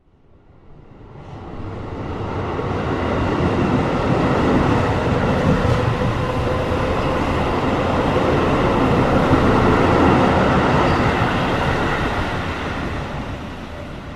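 A train running on the rails: a loud, steady rumble that swells in over the first few seconds and fades away near the end, like a train passing by.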